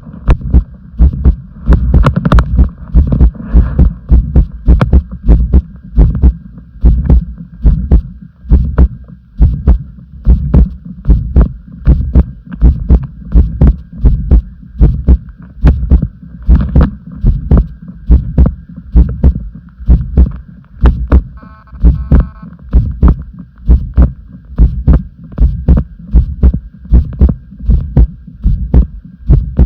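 A human heartbeat recorded close up to the chest: a steady, quick rhythm of low thumps that carries on evenly throughout.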